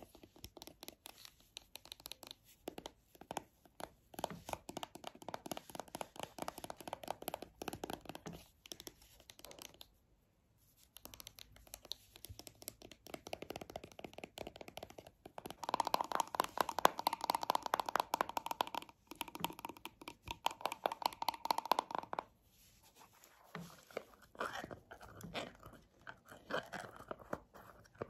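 Long fingernails rapidly tapping and scratching on a plastic cosmetic cream tube, in fast runs of clicks broken by short pauses. The loudest, densest run comes about two thirds of the way in, and the taps grow sparser near the end.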